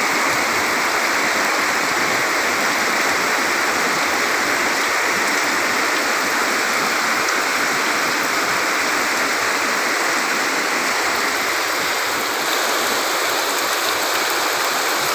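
Heavy rain pouring down in a storm, a dense steady hiss with no let-up.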